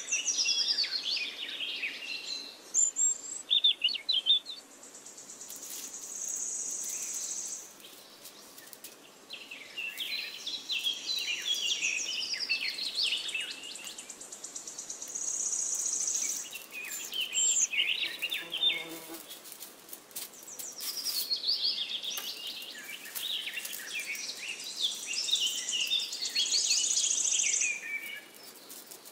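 Birds chirping and singing in several bursts of rapid high chirps and whistled notes.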